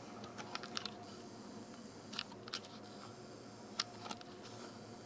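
Camera handling noise: a scatter of short, sharp clicks and taps, several in the first second and more later, over a low steady room hum.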